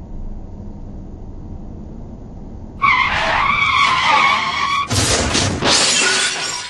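Car tyres screeching for about two seconds, then a loud crash of crumpling metal and shattering glass: a car skidding and colliding. Before the screech, the low steady rumble of the car's engine and road noise heard from inside the cabin.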